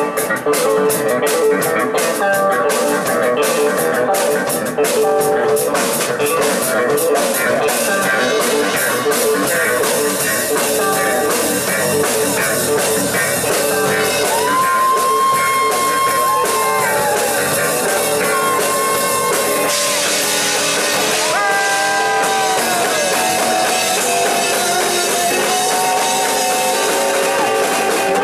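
Live instrumental rock from electric guitar, bass guitar and a Ludwig drum kit. The drums hit busily through the first third, then the electric guitar holds long lead notes that bend in pitch over the bass and drums.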